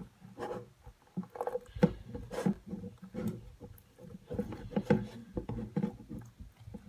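A mushy blend of several slimes being worked and squeezed, giving irregular short wet squishes and pops.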